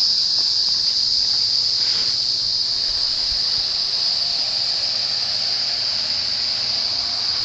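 Steady, high-pitched chorus of insects, an unbroken drone with no change in pitch or level.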